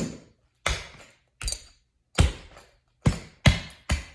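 Clogging taps striking a hard floor in a slow buck basic (double step, toe, heel): seven sharp taps at uneven spacing.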